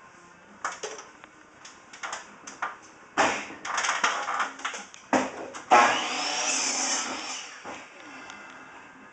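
Paper towel rubbed and wiped over aquarium glass: a run of short rubbing strokes, then a longer, louder wipe about six seconds in.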